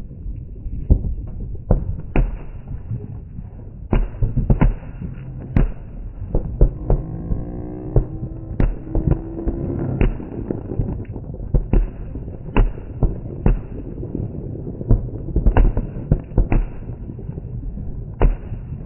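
Fireworks going off all around: an irregular barrage of sharp bangs, some close and loud, others distant, over a continuous low rumble of far-off explosions. A rising whistling tone comes in about halfway through.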